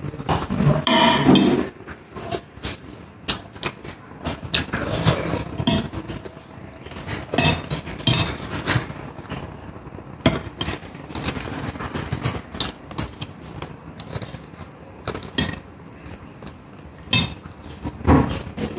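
Close-up eating sounds: a metal fork clinking and scraping on a plate again and again at an irregular pace, with chewing and mouth sounds between.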